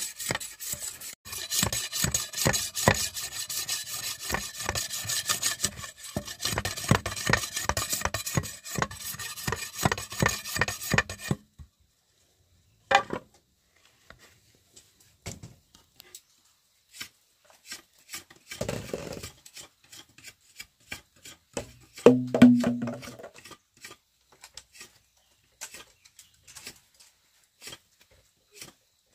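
A knife scraping and shaving a green bamboo pole in quick, repeated strokes for about eleven seconds, then stopping abruptly. After that come only sparse faint ticks and a few short knocks.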